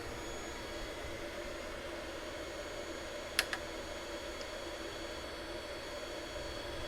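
Steady whir of an Anycubic Chiron 3D printer's cooling fans running with the hot end heated. A single sharp click comes about three and a half seconds in.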